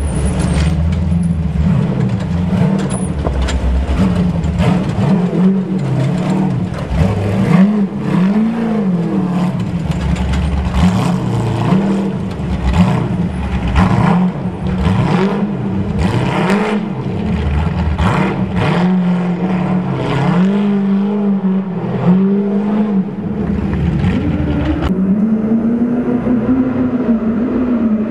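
Off-road race buggy engines revving up and dropping back again and again as the cars pick their way through a rocky wash, with many sharp clacks mixed in. About 25 seconds in, the sound changes to an engine held at a steady, slightly rising rev.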